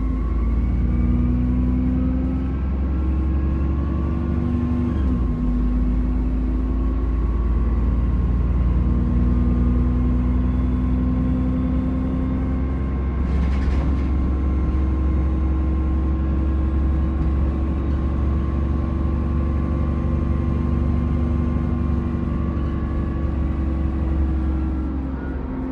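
Enviro400 Trident double-decker bus engine running under way, with a steady high turbo whine over the low engine drone. The engine note shifts about five seconds in, then holds steady.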